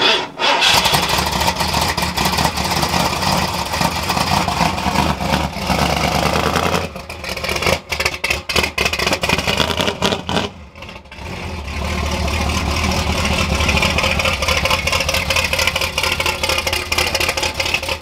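Ford F100's NASCAR V8 running through a freshly built dual exhaust with Widow Maker 10 mufflers and an X-pipe, just after being started. Partway through, the sound drops and surges unevenly for a few seconds, then settles into a steady, loud run.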